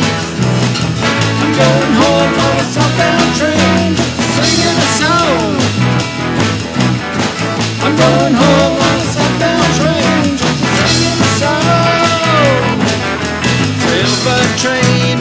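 Rock band playing with guitars, bass guitar and drums, a harmonica playing bent, wavering notes over the band.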